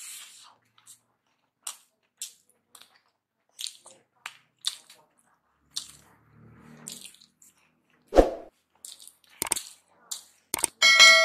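Close-up mouth sounds of eating by hand: lip smacks and wet chewing clicks of rice with tripe and dried fish. A heavy thump comes about eight seconds in, and near the end a ceramic bowl clinks against the plate and rings.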